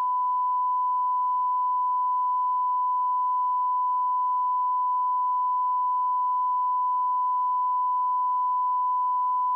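Censor bleep: one steady, unbroken tone dubbed over the soundtrack in editing to cover a swear word, hiding all other sound.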